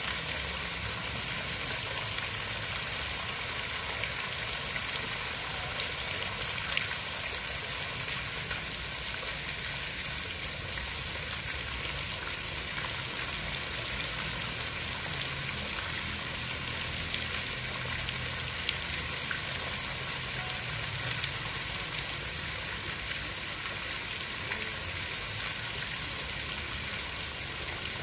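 Continuous hiss of falling or running water, steady and even, with a few faint scattered ticks.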